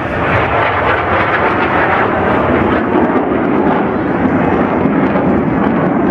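Loud, continuous jet roar from Blue Angels twin-engine F/A-18 Hornets flying past and pulling up into a steep smoke-trailing climb. The roar deepens in the second half.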